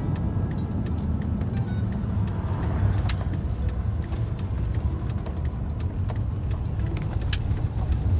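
Vehicle towing a horse trailer, heard from inside the cab: a steady low engine and road rumble with many small, irregular clicks and rattles.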